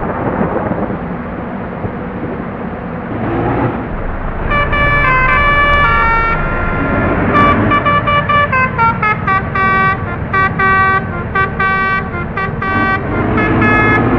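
Bus's multi-tone musical horn (a 'telolet' horn) playing a quick stepping tune of short notes, starting about four seconds in over steady engine and road rumble.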